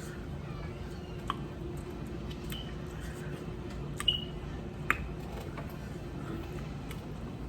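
Close-up eating of a seafood boil: wet squishing and smacking with scattered small clicks of shells and utensils. Three sharper clinks stand out, about a second in and twice around four to five seconds in, one ringing briefly.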